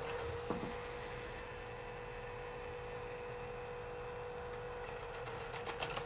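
Tesvor X500 robot vacuum's motors running with a steady whine and hiss as it returns to its charging dock in recharging mode, with rapid clicking near the end.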